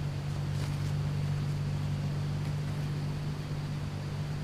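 A steady, low machine hum that runs unchanged and holds one even pitch.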